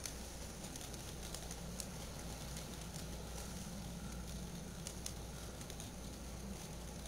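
HO scale model freight train rolling past on the layout track: a faint steady low hum with scattered light clicks and crackles.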